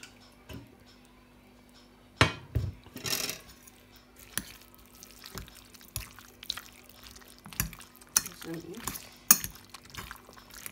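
Metal spoon stirring fried potato and onion into beaten egg in a ceramic bowl, with irregular clinks and scrapes against the bowl, the sharpest about two seconds in and near the end.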